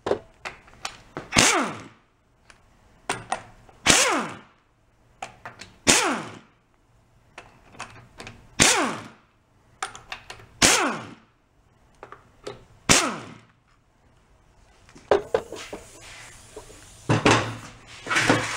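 Hammer blows on a hand impact driver set on the cylinder head bolts of a small engine, trying to break them loose: heavy metal strikes about every two seconds, each ringing briefly, with lighter taps in between.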